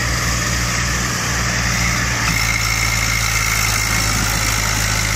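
Eicher 380 and Deutz-Fahr 45 diesel tractor engines running steadily under heavy load as the two tractors pull against each other on a chain.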